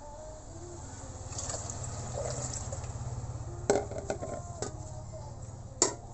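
Liquid pouring or filling in a kitchen, swelling in the middle, with a sharp knock a little past halfway, a few lighter ones after it and another sharp knock near the end.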